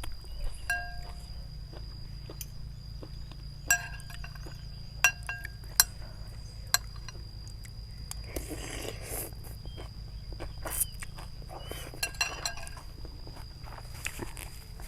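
Eating noodle soup: utensils clink sharply against a ceramic bowl several times, with a stretch of slurping about eight seconds in. A steady high thin tone sits in the background.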